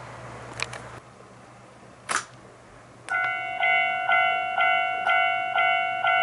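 Two sharp clicks, then about three seconds in a model railway level-crossing warning device starts its electronic bell, a pitched ding repeating about twice a second.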